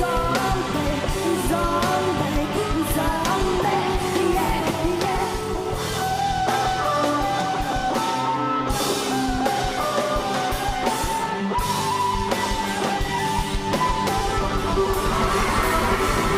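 Live rock band playing: a woman's singing voice over distorted electric guitar and a drum kit.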